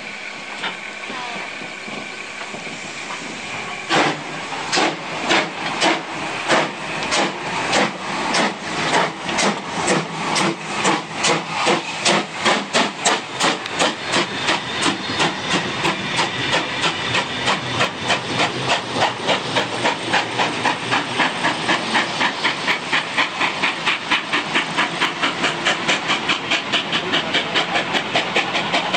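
Steam tank locomotive BR 75 1118 starting away: a steady hiss of steam, then exhaust chuffs from about four seconds in, slow and heavy at first and quickening to about three a second as the train gathers speed.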